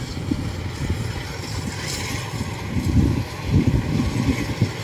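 Kubota DC-93 rice combine harvester's diesel engine and cutting machinery running steadily as it harvests, with gusts of wind buffeting the microphone.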